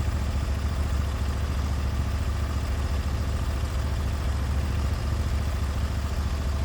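Sawmill's engine running steadily with a deep, even hum.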